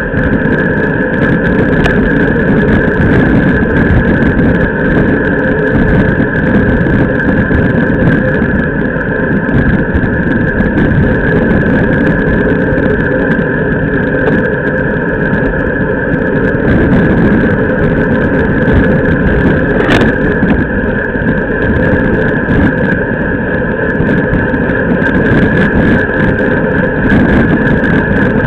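Steady, loud wind and road noise on a camera's microphone mounted low on the fork of a racing bicycle rolling fast over asphalt, with the tyre humming on the road surface. A single sharp click sounds about twenty seconds in.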